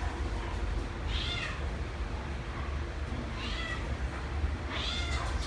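A cat meowing three times, short high-pitched meows that fall in pitch, over a steady low hum.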